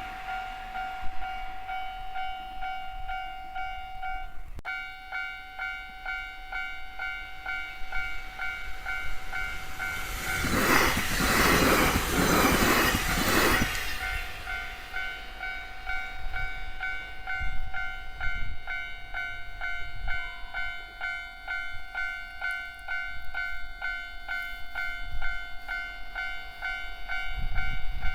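Level-crossing warning bell ringing in a steady repeating pattern, with a train passing loudly over the crossing for about three seconds near the middle.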